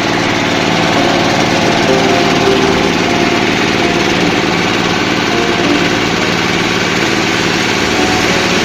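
Coffee huller machine running steadily, a constant loud mechanical drone with no change in speed.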